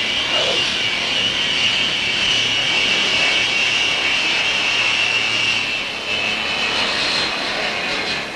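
McDonnell Douglas YC-15's four jet engines running with a steady high whine over a rushing noise as the STOL transport rolls along the runway. The whine eases slightly about six seconds in.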